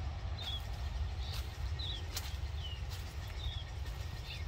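Birds calling in riverside bush: short high chirps, several sliding down in pitch, come every half second or so over a steady low rumble.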